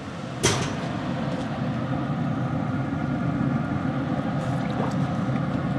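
Steady mechanical hum of a running pellet grill's fan, with one sharp click about half a second in.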